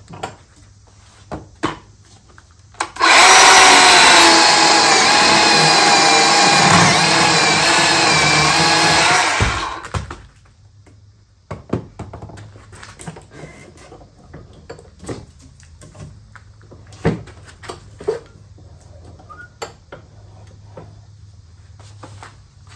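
Small electric chainsaw with a freshly sharpened chain cutting through a walnut log. It starts sharply about three seconds in, runs for about seven seconds with its motor pitch wavering under load, and stops. A few knocks and clunks follow as the log is handled in the vise.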